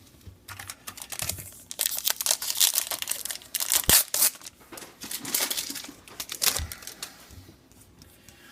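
Foil trading-card pack wrapper crinkling and tearing as it is opened by hand, a dense run of crackles with one sharp click in the middle, dying down near the end.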